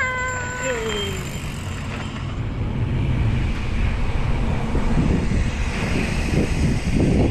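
Wind buffeting the helmet camera's microphone and tyres rolling, as a mountain e-bike is ridden: a steady low rumble. In the first second a high sound glides down in pitch and fades.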